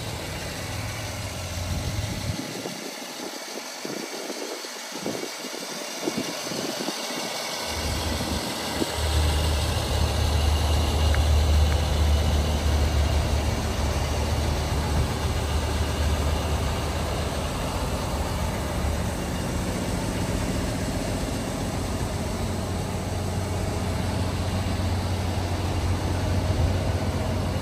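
A 1949 GMC 250 truck's inline six-cylinder engine idling steadily, a low even hum that fills in and grows stronger about nine seconds in.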